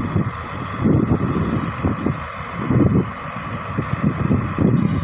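Hyundai hydraulic excavator's diesel engine running under load as the arm digs, a low rumble that swells and eases every second or so over a steady higher whine.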